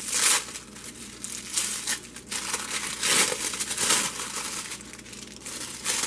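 Tissue paper crinkling and rustling in several bursts as it is unfolded from around a small wrapped piece of jewelry.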